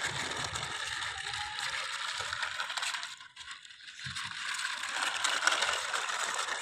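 Small plastic wheels of a baby walker rattling and clattering as it is towed over hard ground, dropping away briefly about halfway through and then picking up again.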